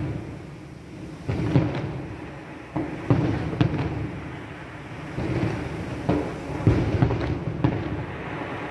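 Fireworks bursting overhead: a series of deep booms a second or so apart, each with a rumbling tail and some crackle.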